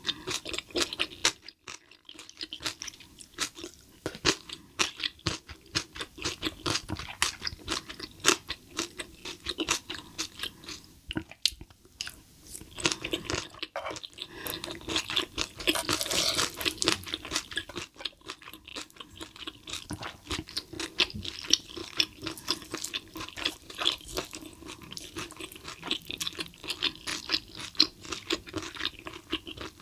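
Close-miked chewing of spicy stir-fried cuttlefish: a dense run of wet mouth clicks and chewing, with the occasional scrape and tap of the utensils on the hot plate.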